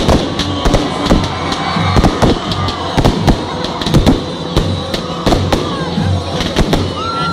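Aerial fireworks going off in a rapid, irregular string of sharp bangs and crackles, over loud music with a steady beat and the noise of a large crowd.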